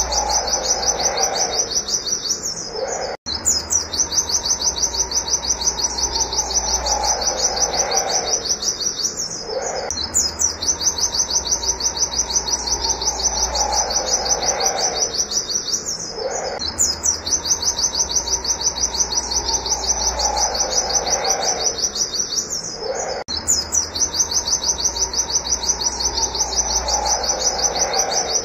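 Pleci (white-eye) singing its rapid 'wit wit' shooting song: long runs of fast, high, repeated chirps, broken by brief pauses every six to seven seconds. A fainter, lower falling sound recurs with each run.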